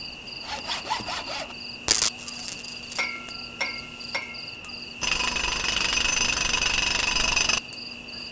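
Crickets chirping in a steady night ambience. A sharp click comes about two seconds in, then three short buzzes a little after. A louder rasping noise starts about five seconds in and cuts off abruptly two and a half seconds later.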